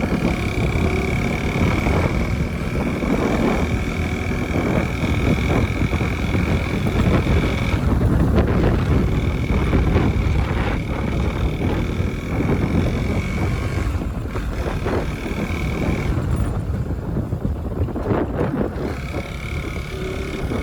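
Wind rush and engine noise of a motorcycle being ridden, picked up by a helmet-mounted phone: a loud, steady rumble with a thin high whine that drops out twice.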